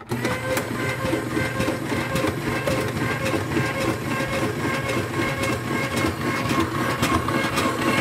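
Cook Essentials electric mandoline switching on suddenly and running with a steady motor whir and rapid clicking as a cucumber is pushed down the feed chute onto the thin-slice disc and sliced.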